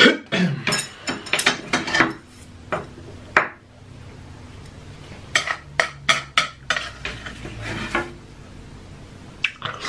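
Close-up mouth sounds of eating: wet chewing, lip smacks and clicks in irregular clusters, with a quieter pause a few seconds in.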